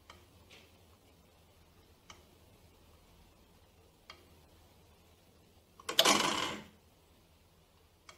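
Synchronome electric master clock ticking: a light click every two seconds as the pendulum's pawl steps the brass count wheel on by one tooth. About six seconds in comes one much louder clack with a short rattle, the twice-a-minute impulse when the gravity arm drops onto the pendulum and the electromagnets pull it back up.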